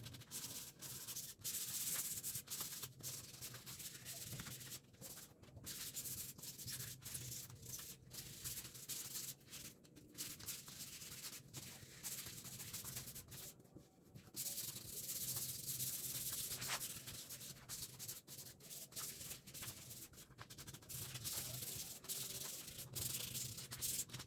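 Faint rubbing strokes, repeated irregularly a stroke or two a second, in the manner of hand sanding wood.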